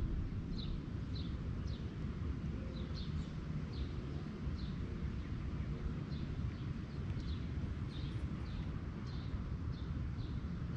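A small bird chirping over and over: short high notes, each sliding down in pitch, one or two a second, over a steady low rumble.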